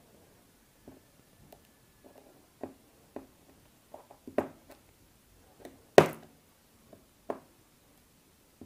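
Soldering iron tip tapping and scraping on an LED bulb's circuit board inside its plastic housing: irregular light clicks and taps, with one sharp knock about six seconds in.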